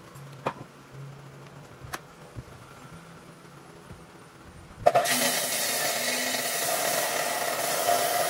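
A few light knocks, then about five seconds in a power tool working wood starts suddenly. It runs loud and steady with a hissing noise.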